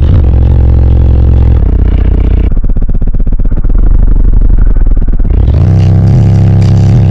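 Car audio system of six 18-inch subwoofers playing deep bass at extreme volume, heard from inside the vehicle and overloading the recording. About two and a half seconds in, the higher parts drop out, leaving a pulsing low bass note for about three seconds before the fuller bass track returns.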